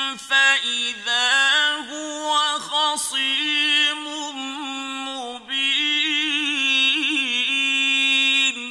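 Qur'anic recitation in the mujawwad style by a single male reciter, holding long, melodically ornamented notes with a few short breaks. Near the end the voice stops and a reverberant echo dies away.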